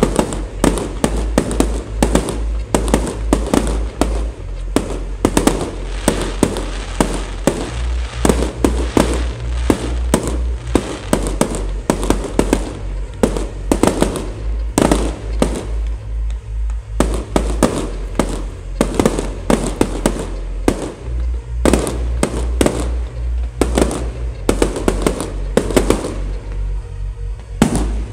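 Fireworks going off in quick succession, many sharp bangs a second with crackling between them, over music with a steady bass beat.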